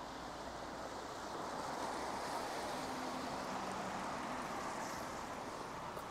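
A vehicle passing on a wet road: the hiss of its tyres swells over a couple of seconds, with a faint engine hum at its loudest, then fades away.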